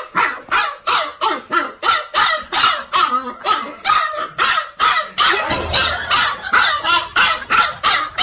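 A dog barking over and over in a steady rhythm, about three barks a second, cut off abruptly at the end.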